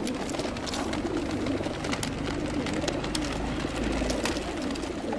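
Many racing pigeons cooing together inside stacked plastic transport crates, a continuous overlapping murmur of coos, with scattered sharp clicks as the crate doors are handled.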